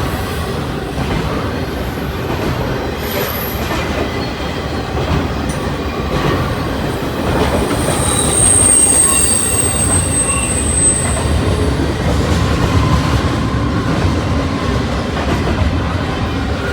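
Norfolk Southern freight train rolling past with a steady rumble of cars on the rails. A high wheel squeal rises about eight seconds in and lasts a few seconds.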